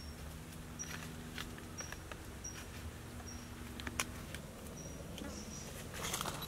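Bare feet stepping and rustling on dry leaf litter and twigs, in scattered crackles with a denser cluster near the end. A short high chirp repeats about once a second in the background.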